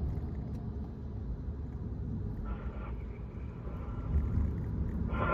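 Sport motorcycle riding at expressway speed: steady wind rush over the bike and engine drone, heard from the bike itself.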